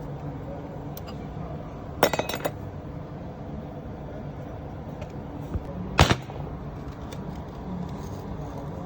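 Metal tools clinking against metal parts: a quick cluster of clinks about two seconds in and a single sharper, louder strike about six seconds in, over a steady low hum.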